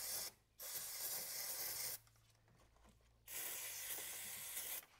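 Aerosol electrical contact cleaner hissing from the can in bursts, sprayed onto an oily engine wiring harness connector: a short burst ending just as it begins, then two longer bursts of about a second and a half each.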